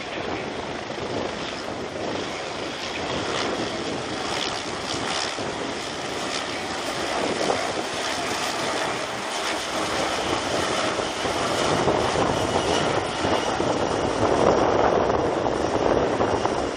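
Four-bladed helicopter's turbine and rotor noise, a steady rushing sound that grows louder as the helicopter comes closer and drops low over the airfield.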